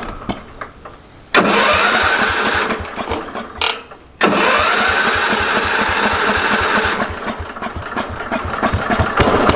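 Power King garden tractor's engine starting with a sudden loud burst about a second in and cutting out after a couple of seconds. It starts again about four seconds in and keeps running, easing off a little near the end.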